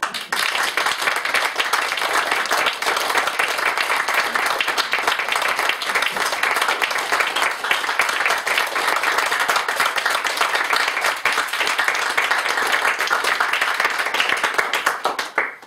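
Audience applauding: loud, dense hand clapping that starts at once and stops abruptly near the end.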